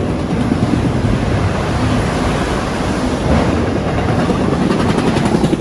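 A freight train of autorack cars rolling past at about 53 mph: a loud, steady rumble of steel wheels on rail, with faint repeated clicks.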